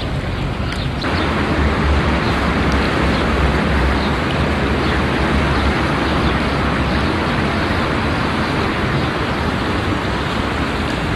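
A steady rushing noise with a low rumble, louder from about a second in.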